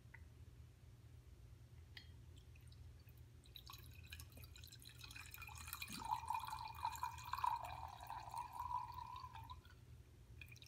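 Red wine pouring from a bottle through a pour spout into a wine glass: a faint stream splashing into the glass, starting about three and a half seconds in, getting louder as the glass fills and stopping shortly before the end.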